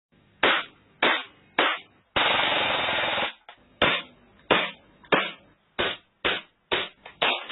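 Airsoft gun dry-firing with no BBs loaded: three single shots, a continuous full-auto burst of about a second, then single shots that come closer and closer together near the end.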